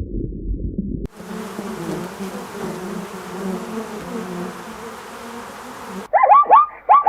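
A flying insect buzzing steadily at a low pitch for about five seconds, cutting off abruptly. Before it, a low rumbling sound ends about a second in; near the end it gives way to a run of quick, high, loud chirps.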